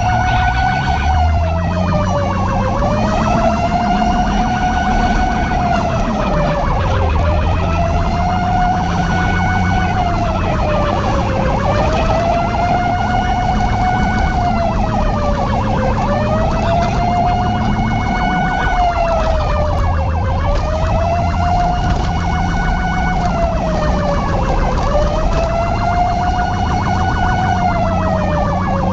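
Emergency siren wailing in a slow, even rise and fall, about once every four and a half seconds, over a low steady hum.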